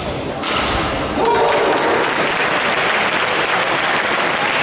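Spectators applauding in a sports hall: the clapping starts just after a knock and swells about a second in, with a short shout from the crowd.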